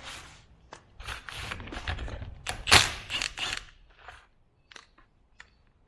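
Metal parts of a power steering pump being handled and worked apart by hand: scattered clicks and short scrapes, with one sharp knock about three seconds in, then only a few small clicks.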